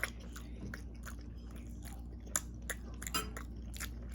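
A person chewing food close to the microphone: a string of small, irregular wet mouth clicks and smacks, over a low steady hum.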